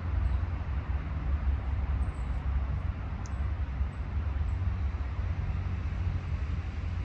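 A steady low rumble with a hiss above it: continuous outdoor background noise.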